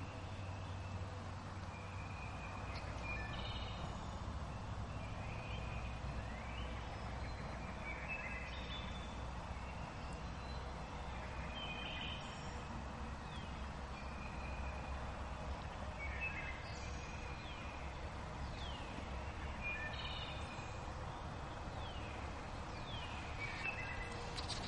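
Wild birds calling over and over in the woods, short chirps and quick falling whistles every second or two, over a steady low rumble.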